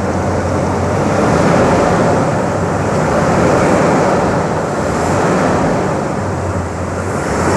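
Dodge Ram 1500's Hemi V8 running just after start-up with a newly fitted K&N cold air intake, a steady engine note under a rushing intake noise that swells and eases a few times.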